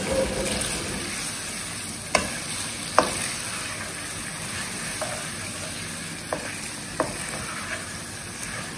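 Spaghetti in chilli sauce sizzling in a wok while a wooden spatula stirs and tosses it, with several sharp knocks of the spatula against the pan, the loudest about three seconds in.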